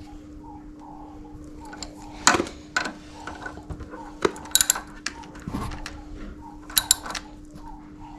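Metal hand tools and parts clinking and knocking in a handful of sharp, irregular taps while a motorcycle brake caliper is being refitted, over a steady low hum.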